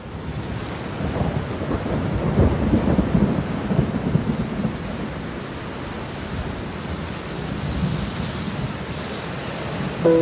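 Steady rain with a roll of thunder that swells about a second and a half in and rumbles away by about five seconds. The sound rises from quiet at the start, and a held music chord comes in at the very end.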